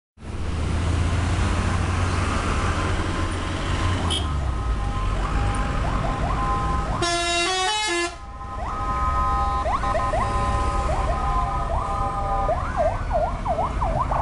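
Tour bus 'telolet' multi-tone air horns playing short melodic phrases over the rumble of passing traffic, with repeated upward swoops and a stepped tune about halfway through. A fast wavering, siren-like wail starts near the end.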